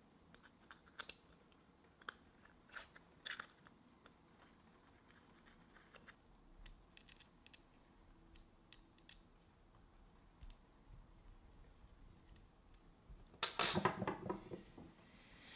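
Scattered light clicks and taps of small parts and tools being handled while a Toyan FS-S100 model nitro engine is assembled by hand, with a louder, denser clatter about a second and a half before the end.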